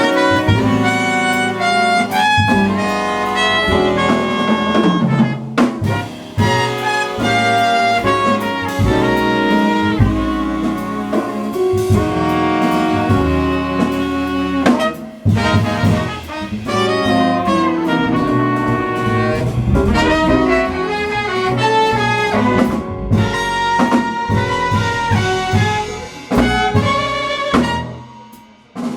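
Small jazz ensemble playing hard bop: saxophone and trumpet over a drum kit and rhythm section, dropping away briefly near the end.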